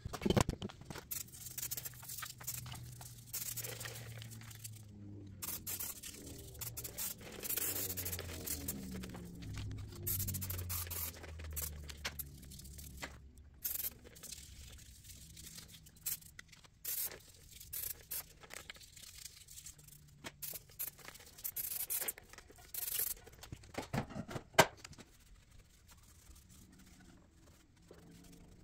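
Hand cleaning of a VW Beetle's oil-soaked gearbox bell housing: irregular short scraping and rubbing strokes of a rag or brush on the greasy metal case.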